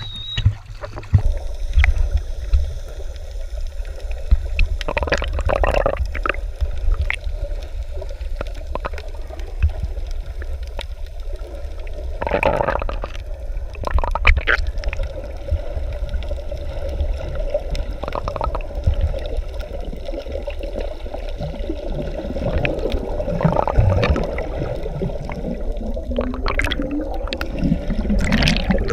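Sea water gurgling and sloshing around the microphone while snorkeling, over a steady low rumble, with a few louder splashes.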